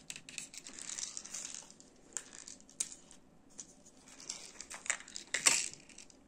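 Crinkling and small clicks of craft materials being handled at a table, with a louder crinkle about five and a half seconds in.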